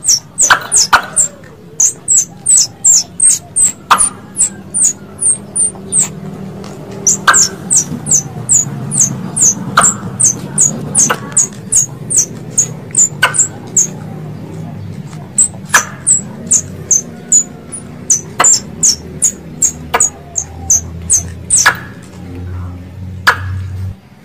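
Tree squirrel (bajing) calling: a long series of quick, high-pitched chirps, each sliding down in pitch, about three a second, in runs with short breaks. Sharp clicks come every few seconds, over a low hum.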